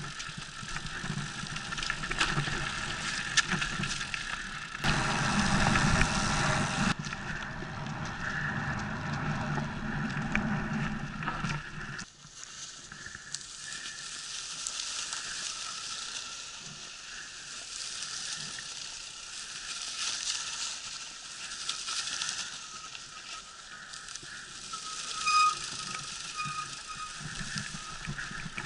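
Mountain bike riding down a grassy dirt trail, heard from a camera on the bike or rider: tyres rolling over dry grass and dirt, with the bike rattling and clicking over bumps and a steady hiss of wind. A brief high squeal comes a few seconds before the end.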